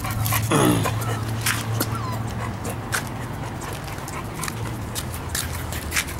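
Bullmastiff puppies whimpering, with one whine falling in pitch about half a second in, over scattered light clicks and a steady low hum.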